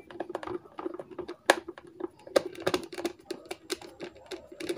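Irregular light clicks and taps of small parts being handled and fitted into a rechargeable emergency light during its reassembly.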